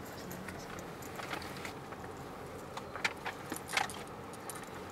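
Inside a slowly moving car: the engine and road make a steady low hum, and a few short light clicks and rattles come from inside the cabin, the sharpest about three seconds in and again shortly after.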